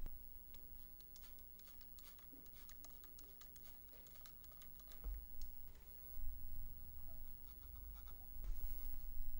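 A quick run of light, sharp clicks from a hand mist sprayer as water is sprayed into a small acrylic terrarium case, followed in the last seconds by a paper towel rubbing against the inside of the plastic wall.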